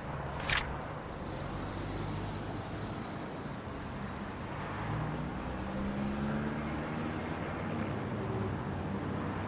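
Road traffic: vehicle engines running and passing in a steady low rumble, with one sharp click about half a second in.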